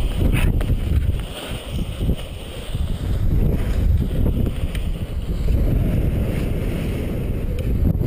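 Wind buffeting the camera microphone, a loud gusty rumble from the rush of air as a paraglider pilot comes down under his reserve parachute. It eases briefly about a second and a half in, then picks up again.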